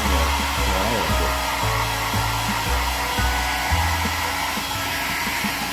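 Hand-held hair dryer blowing steadily, drying a pet's fur after a bath, with a low rumble from the airflow that rises and falls.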